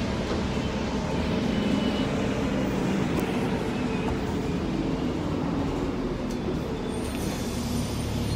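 Steady engine and road rumble inside a moving city bus, with a low hum that shifts slightly in pitch.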